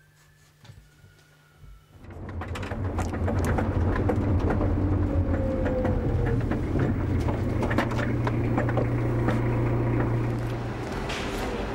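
After about two seconds of quiet room tone, car engine and road noise are heard from inside the cabin: a loud, steady low rumble with scattered ticks and knocks. The rumble eases somewhat near the end.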